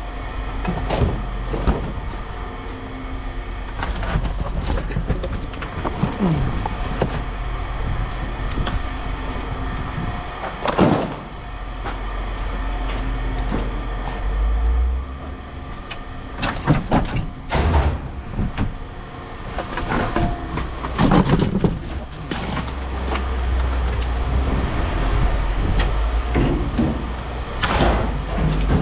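A steady low engine or machine drone, with scattered knocks and clanks throughout.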